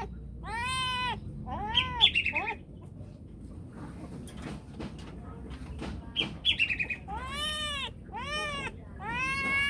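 Domestic cat meowing about five times, with a pause in the middle. Twice there is a short burst of rapid, high chirping.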